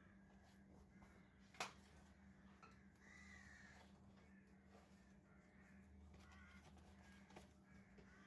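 Near silence: a faint steady hum, with a single sharp click about a second and a half in and a few faint high sounds that rise and fall later on.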